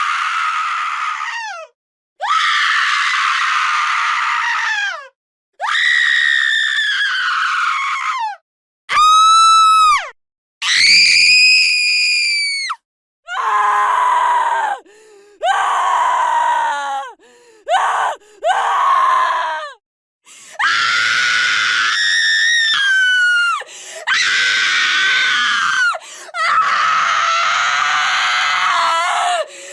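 A woman screaming in fright: about a dozen separate screams of one to three seconds each, with short silent gaps between them. Some are clear, high-pitched shrieks and others are noisier.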